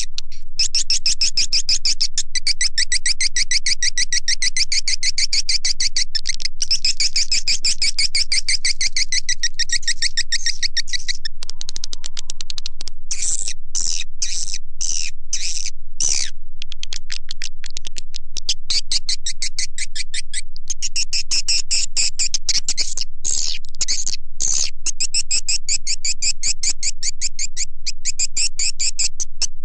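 Swiftlet call track ('suara panggil walet'): dense, rapid twittering chirps of edible-nest swiftlets played without pause, the lure sound that swiftlet farmers broadcast from nest houses to draw the birds in. A low steady hum lies underneath.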